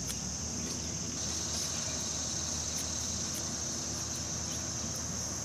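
Steady high-pitched chorus of insects in a summer garden, with a few faint clicks from small snips cutting lovage stems.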